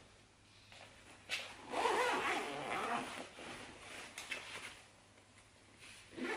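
Zipper of a stroller footmuff being pulled open in one long rasp about two seconds in, after a short click, with quieter fabric rustling and short rasps after it.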